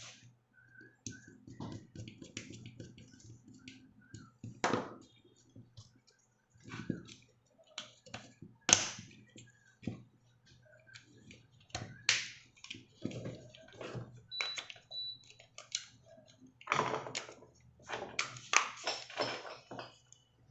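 Irregular clicks, taps and knocks of small hard objects being handled, a few of them louder, over a faint steady low hum.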